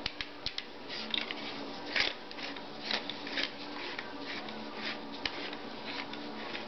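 Scattered light clicks and scrapes of carbine parts being handled as the buffer tube and stock are turned onto the Just Right Carbine's receiver, over a steady low hum.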